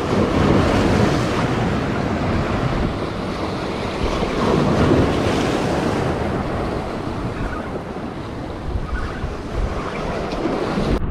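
Surf breaking and washing against the rocks of a jetty, with wind buffeting the microphone; the wash surges louder near the start and again about halfway through.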